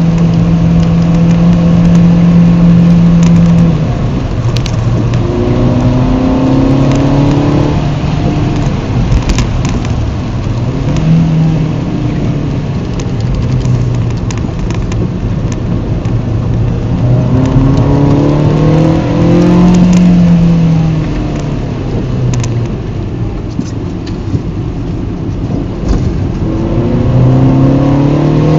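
Seat Ibiza SC's engine heard from inside the cabin, revving up hard three times as it accelerates out of bends and falling back between, over the hiss of tyres on a wet road.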